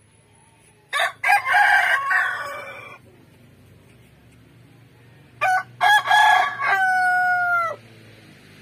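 A rooster crowing twice, about four seconds apart; each crow opens with a few short choppy notes and ends in a long held note that drops off at the end.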